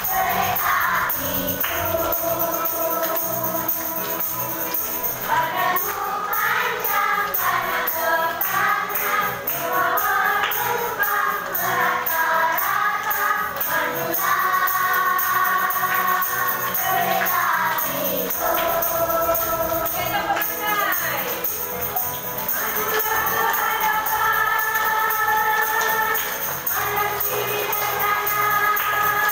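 A group of voices sings a children's song in unison, with a light percussion instrument keeping a steady beat.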